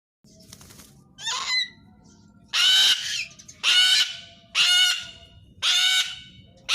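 Cockatoo screeching: a softer call about a second in, then a run of loud, harsh squawks about one a second.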